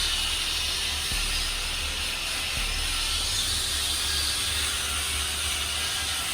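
Steady hiss over a low rumble.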